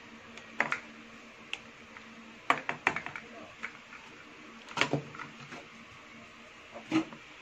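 Scattered light knocks and clicks of a cup and a metal sieve being handled while flour is added, with a cluster about two and a half seconds in and another near five seconds, over a faint steady hum.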